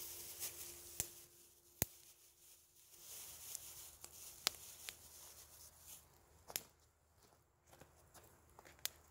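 Wood campfire crackling: a faint hiss with sharp pops at irregular intervals.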